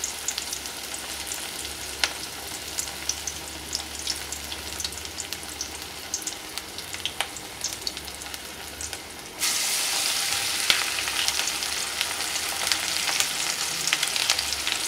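Banana-flower and chana dal vada deep-frying in hot oil in an aluminium kadai: steady sizzling with scattered crackling pops. It turns suddenly louder and fuller about nine seconds in.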